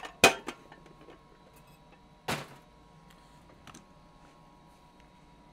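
A few sharp clicks and knocks of small makeup containers being picked up and set down on a desk: a loud one at the very start, another about two seconds later, and a faint one about a second after that, then quiet room tone.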